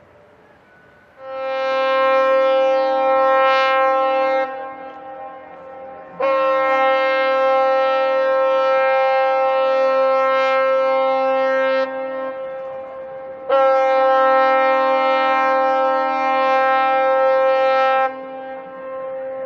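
A paddle steamer's whistle sounding three long blasts, a chord of a strong high note over a weaker lower one, with the middle blast the longest at about six seconds. It is a ship's salute.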